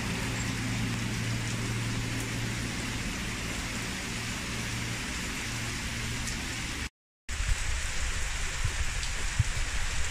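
Heavy rain falling on a flooded street and pavement, a steady hiss of drops and splashing. A low steady hum runs under it at first; the sound cuts out briefly about seven seconds in, and after that the rain comes with a few low thumps near the end.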